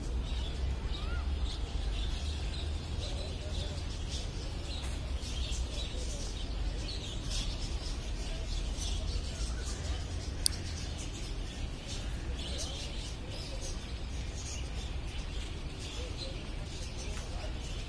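Small birds chirping with many short, high calls over a steady low rumble, with one sharp click about ten and a half seconds in.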